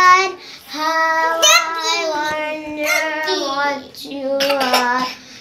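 A toddler singing a nursery rhyme in a high voice, holding long notes, with short breaks near the start and about four seconds in.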